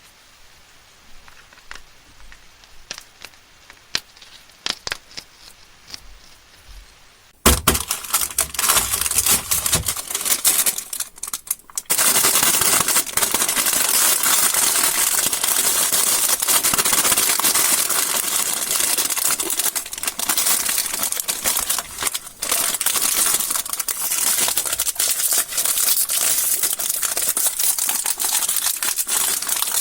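Candy wrappers being handled and crinkled. Faint scattered light clicks at first; then, about seven seconds in, loud crinkling with a few soft knocks begins, turning into dense, continuous crinkling from about twelve seconds in.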